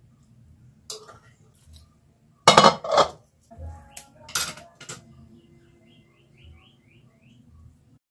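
Metal utensils clinking and scraping against a ceramic bowl while noodles are stirred. A single clink about a second in, a loud cluster of clinks a little later, and a few more near the middle.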